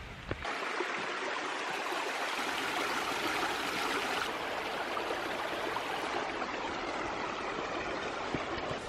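Mountain creek rushing over rocks: a steady, even rush of water that starts abruptly about half a second in.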